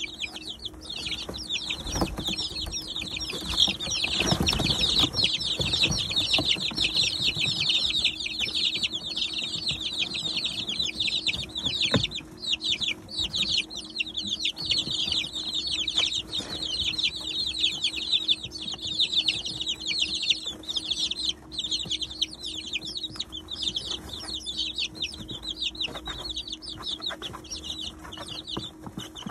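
A brood of three-week-old chicks peeping nonstop, many high, short chirps overlapping at once. Scattered sharp taps and rustling come from the chicks pecking at the feeder and scratching in the grain-husk bedding, with a busier stretch of rustling about four seconds in.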